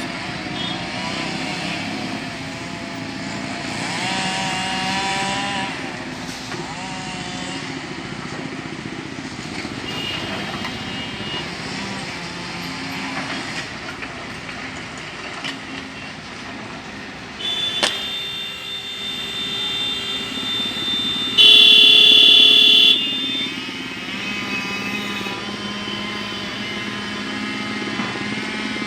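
Motor vehicle engines running and changing pitch as they rev and move. About 17 seconds in there is a sharp click, followed by a steady tone, and a few seconds later a loud steady blaring tone is held for about a second and a half.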